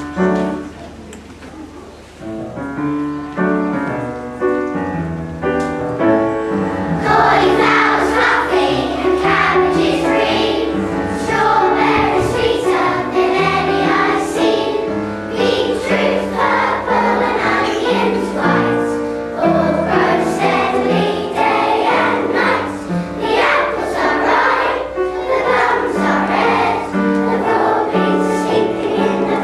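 Young children singing together as a choir with musical accompaniment. A short instrumental introduction comes first, and the voices come in about seven seconds in.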